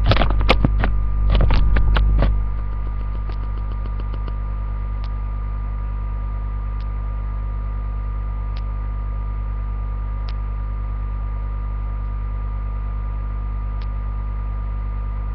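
Steady low electrical hum with a few thin steady tones underneath. In the first two seconds or so there is a burst of rustling and clicking handling noise, and afterwards faint single ticks every second or two.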